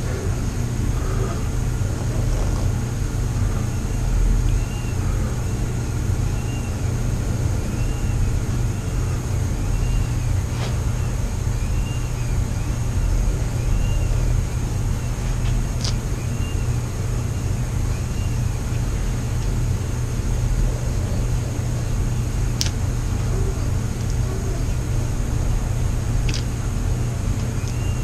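A steady low mechanical hum, like a room fan or air conditioner running. A faint high chirp repeats about once a second from a few seconds in, and a few light clicks come at scattered moments.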